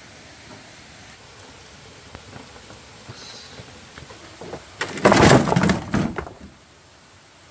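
A loud clatter of knocks and rattling lasting about a second and a half, starting about five seconds in, over a faint steady background.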